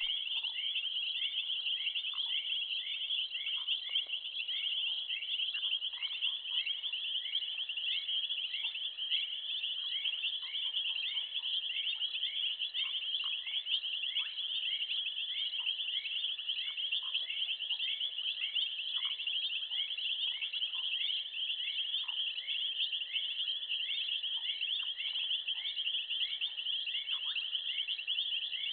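Dense insect chorus: a steady high pulsing trill with a shorter chirp repeating about once a second, and scattered brief lower notes.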